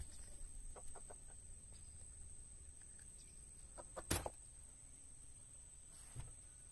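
Mostly quiet outdoor scene with a few faint short animal calls, then a single sharp knock about four seconds in and a softer thump about two seconds later.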